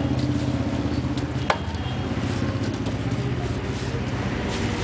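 A steady low engine hum, like a vehicle idling close by, with a single sharp click about a second and a half in.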